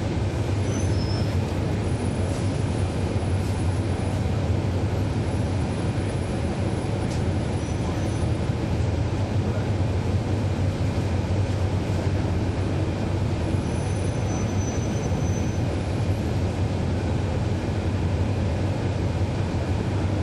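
Sound aboard a 2012 NABI 416.15 (40-SFW) transit bus: its Cummins ISL9 diesel engine runs with a steady low drone and road rumble, with no change in engine pitch.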